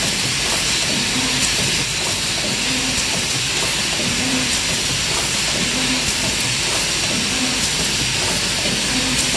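Automatic corner-spout pouch sealing machine running: a steady hiss, with a low hum that returns about every one and a half seconds as the machine cycles.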